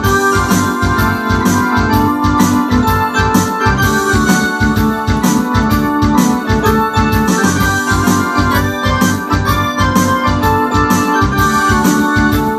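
Ensoniq SD-1 synthesizer keyboard playing a rock keyboard part of chords and runs, over a steady quick beat.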